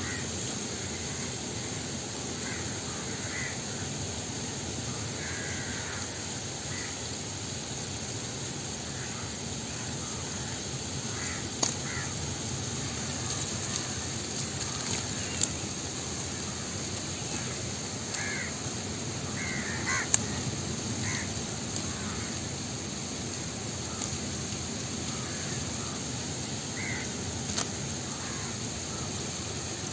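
Crows cawing now and then, in short scattered calls, over a steady background hiss, with a few sharp clicks.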